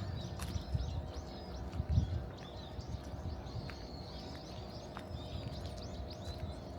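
Small birds chirping and twittering continuously in many short, high calls, over a low rumble with a thump about two seconds in.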